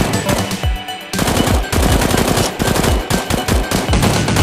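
Rapid automatic gunfire sound effect, dubbed in for a toy blaster being fired, with a short break about a second in before the firing resumes.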